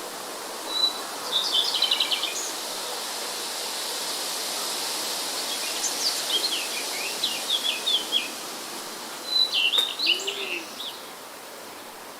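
Forest songbirds singing in three short bursts of quick high chirps and trills over a steady background hiss.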